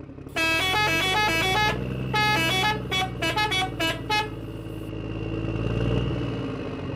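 Truck sound effect: a steady engine rumble under a multi-note musical horn that plays a run of toots at changing pitches for about four seconds, the last ones short and quick. After the horn stops, the engine rumble carries on alone, swelling a little.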